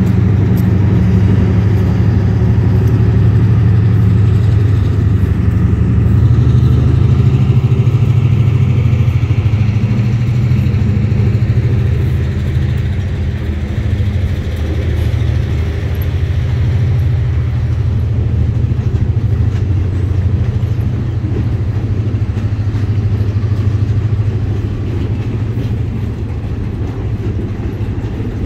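Diesel switcher locomotive's engine running with a steady low drone as it pulls a short train of freight cars past at low speed. The drone eases off a little after about twelve seconds as the locomotive moves on past the cars.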